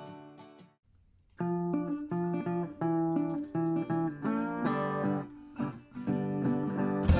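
Acoustic guitar background music with plucked notes and slides. It fades out within the first second, leaves a short gap, and starts again; a low thump sounds near the end.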